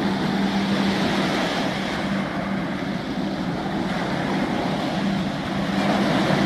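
Wind rushing over the microphone with choppy harbour water, under a steady low engine drone that fades about two seconds in and comes back near five seconds.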